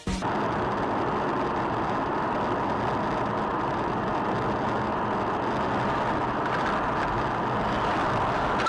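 Steady driving noise of a vehicle on the road, engine and tyre noise, with no impact or crash heard.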